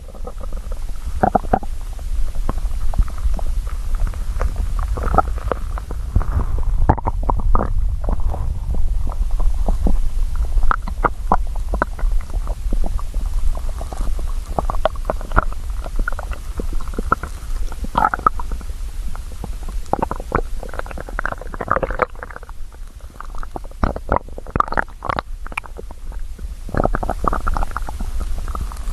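A hungry person's stomach growling: a steady low rumble under many quick gurgles and pops, which come thicker in the second half.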